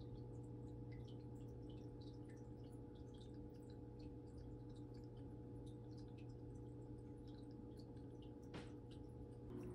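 Faint steady hum of a small aquarium's filter pump, with scattered light drips and ticks of water; one sharper click near the end.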